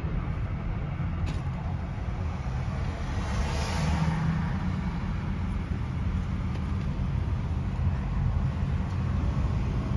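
Steady low rumble of road traffic, with a vehicle passing by about three to four seconds in.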